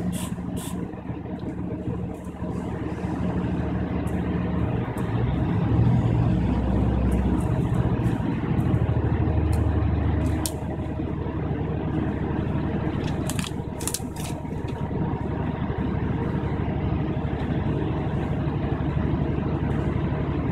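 Class 153 diesel railcar's underfloor Cummins engine working under power as the train pulls away, heard from inside the carriage. The engine grows louder a few seconds in and eases about ten seconds in. Occasional light clicks and rattles sound over it.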